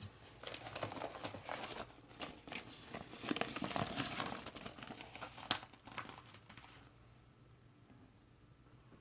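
Record packaging crinkling and rustling as it is handled, loudest in the middle, with one sharp crackle; it stops about seven seconds in.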